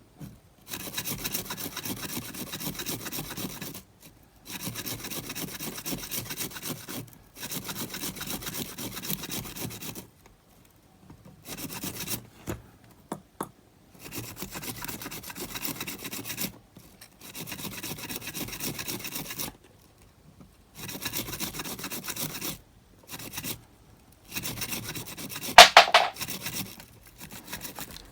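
Rubbing strokes scrubbing verdigris off the copper flywheel wheel of a Panasonic RQ-S60 cassette player, in runs of a few seconds with short pauses between. One louder, sharper scrape comes near the end.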